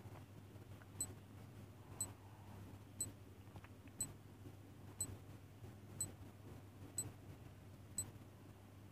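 Countdown-timer clock-tick sound effect: a short, sharp, high tick once a second, eight ticks in all, over a faint steady low hum.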